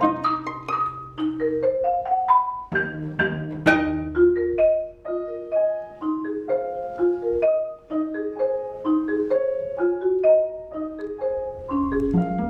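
Live contemporary chamber music: a quick, steady line of short struck notes with a mallet-percussion sound, with low held notes under it in the first half.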